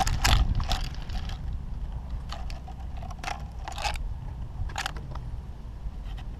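Irregular crunching and scraping, about a dozen short strokes spaced unevenly, like footsteps through dry brush, over a steady low rumble.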